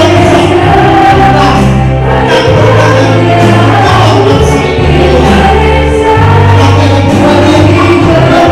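Praise-and-worship music with singing over a band, carried by a strong bass that holds each note for a second or two before moving to the next.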